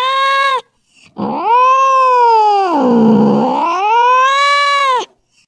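Angry domestic cat yowling: a call breaks off just after the start, then after a brief pause comes one long wavering yowl of about four seconds that sags low in the middle and climbs again before cutting off sharply.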